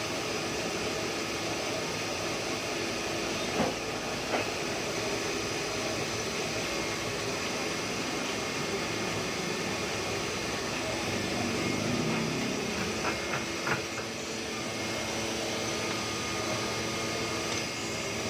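Heidelberg GTO 52 sheet-fed offset printing press running steadily, with two sharp clicks a few seconds in and a quick run of clicks about two-thirds of the way through.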